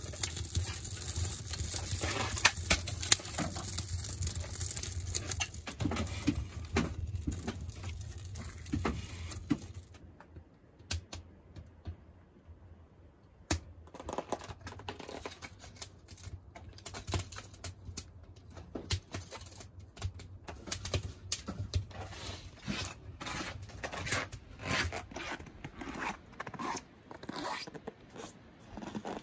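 Newly lit kindling fire crackling and snapping inside a wood stove's firebox, dense at first. After a short quiet about ten seconds in, sparser crackles and ticks go on.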